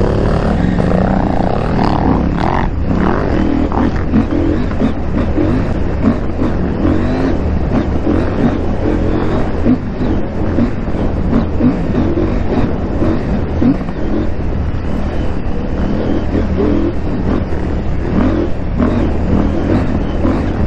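KTM 890 Adventure R's parallel-twin engine running under way, its pitch rising and falling with the throttle.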